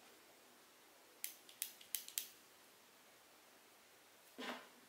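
Small metal parts of a spinning fishing reel being handled: a quick run of about five sharp little clicks in a second, then a softer scrape near the end.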